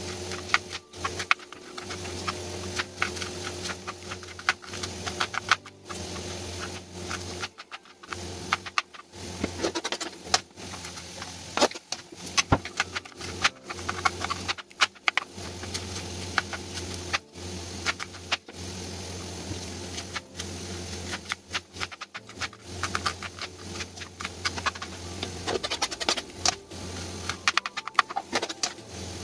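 Kitchen knife slicing red onions on a plastic cutting board: quick, uneven runs of sharp taps as the blade hits the board. A steady low hum runs underneath.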